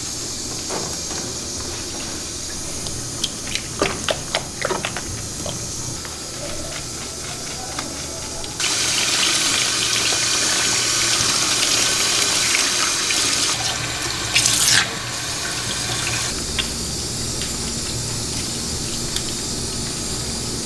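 Water running from a handheld shower sprayer and splashing while a wet cat is rinsed in a plastic grooming tub, with a few sharp knocks and splashes about four seconds in. The spray gets louder and hissier about nine seconds in and drops back about seven seconds later.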